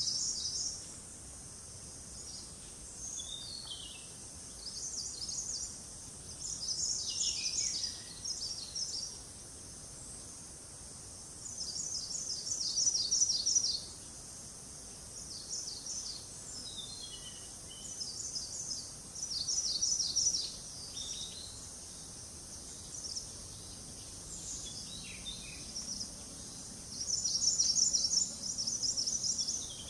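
Forest birdsong: bursts of rapid, high trilling notes every few seconds, with a few short falling whistles in between, over a steady thin high-pitched insect drone.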